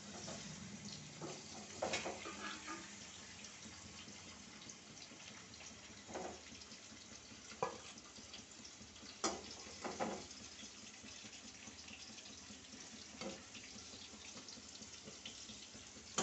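Raw chicken pieces and garlic cloves handled wet in a steel bowl, over a steady faint hiss of running water, with several light knocks against the bowl.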